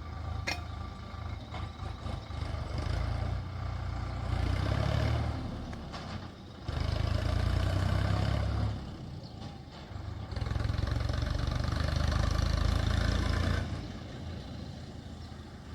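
Diesel engine of heavy machinery running, rising in three loud surges of a few seconds each and dropping back to a lower running level between them and near the end.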